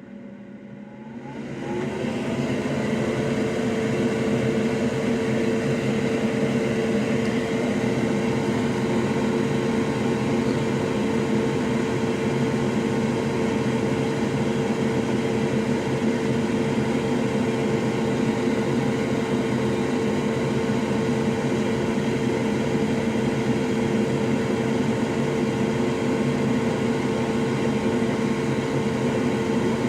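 A solder fume extractor fan turned up to high, spinning up over the first couple of seconds with a rising whine, then running steadily with a loud whir and a steady hum.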